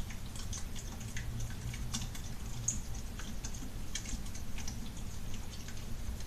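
Glue-and-borax slime being stirred in a bowl, giving irregular small clicks and wet ticks while it is still runny and not yet set.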